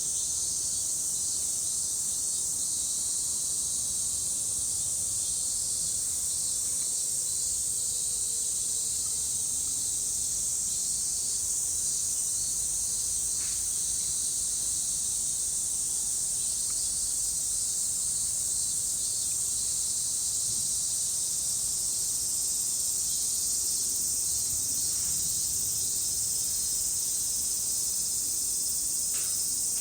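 A chorus of many cicadas singing together in a continuous, steady, high-pitched buzz that neither rises nor falls.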